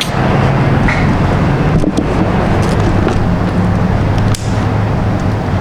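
Steady mechanical running noise: a low drone with a fast, even pulse, broken by two sharp clicks, one about two seconds in and one a little past four seconds.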